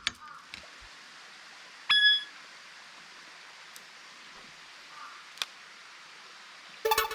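A single sharp metallic ding that rings briefly, about two seconds in, over a steady faint outdoor hiss. A lighter tick follows a few seconds later, and a quick cluster of knocks and short tones comes at the very end.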